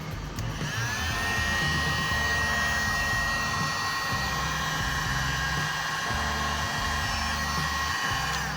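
Handheld decal heat gun's fan motor switched on. It spins up during the first second to a steady high whine and runs down near the end, a test of the newly replaced switch.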